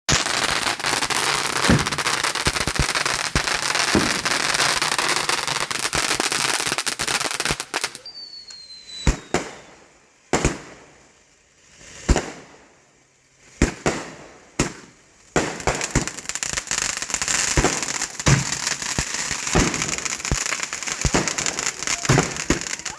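Consumer fireworks going off: a dense run of crackling pops for about eight seconds, then a stretch of separate sharp bangs with a short falling whistle, then dense crackling again.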